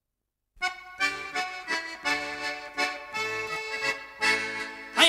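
Instrumental introduction of an Irish folk song: a melody of short notes played over held chords, starting about half a second in. A singing voice comes in at the very end.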